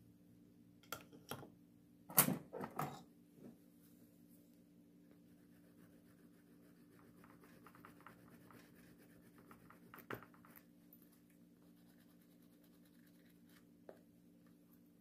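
Leather card holder edge being rubbed with a wooden burnisher, a faint dry scratching in the middle stretch. Before that, about two seconds in, comes a short cluster of knocks and clatter as a tool is handled and set down on the table; this is the loudest part. A steady low hum sits underneath.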